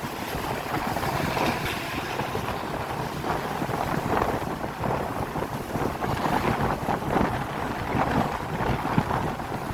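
Bus engine and 'ngorok' (snoring, tinny) exhaust running steadily on the move, the exhaust note typical of Cirebon-style buses, with wind noise on the microphone.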